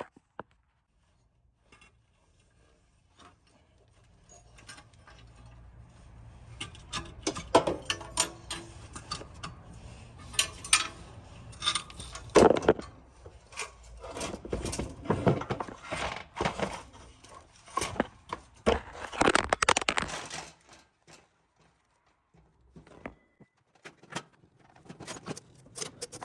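Irregular metallic clinks, scrapes and knocks of hands handling a turbocharger and its fittings in an engine bay, with occasional louder thuds.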